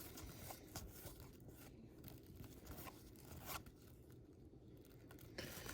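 Faint rustling and scattered light ticks of trading cards and their paper packs being handled.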